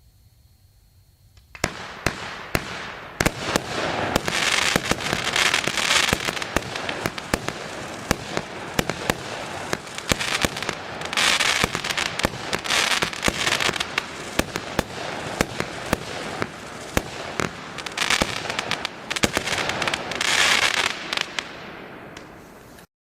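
Röder Feuerwerk 'Billich&Willich No.4' fireworks battery firing. After a quiet moment at the start comes a dense run of sharp bangs and crackling that lasts about twenty seconds and stops abruptly near the end.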